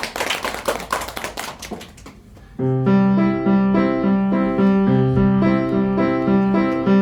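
A short spell of irregular clattering noise, then about two and a half seconds in a digital piano starts playing a simple children's song: evenly held notes over a steady repeating bass pattern.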